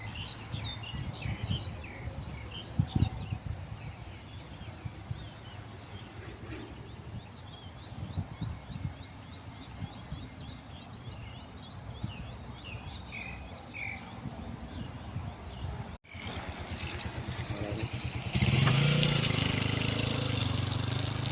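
Birds chirping in quick short calls over a low outdoor rumble. Near the end, after a break, a louder steady hum with hiss takes over.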